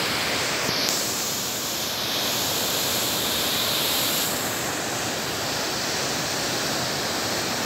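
Steady rush of a fast, rain-swollen river in strong current, with no break in the noise.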